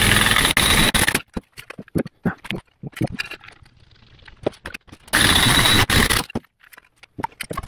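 Air impact wrench driving an exhaust pipe expander into the end of a steel exhaust pipe. It runs for about the first second, stops, then runs again for about a second five seconds in, with clinks and scrapes of the tool and pipe being handled in between.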